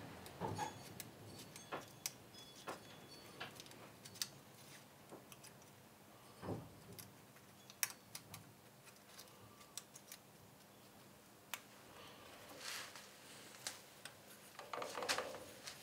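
Scattered light metallic clicks and taps of a hex key and fingers on the bearing-cap bolt of a Myford ML7 lathe headstock, as the spindle bearing cap is adjusted and shimmed. Some handling rustle comes near the end.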